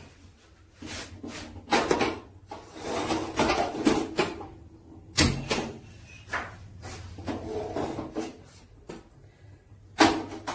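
A large aluminium cooking pot knocking and scraping as it is set on a gas stove and handled, irregular clunks with the sharpest about five seconds in and near the end.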